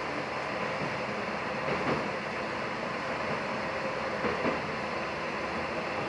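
Diesel railcar running through a tunnel: a steady rumble of wheels on rail and engine, with a couple of faint clicks from rail joints.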